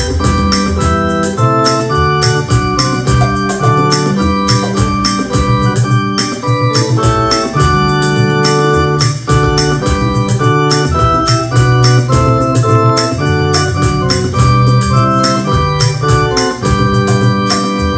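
Yamaha PSR-S-series arranger keyboard playing a hymn in sustained organ-style chords over a moving bass line, with a steady drum beat from the keyboard's style accompaniment.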